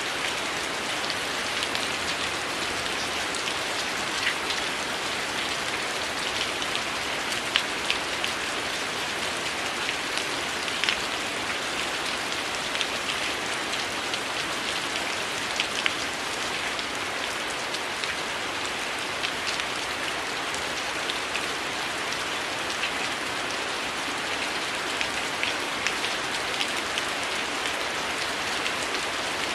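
Heavy rain falling steadily, with frequent small sharp crackles and pops of a wood fire scattered over the hiss.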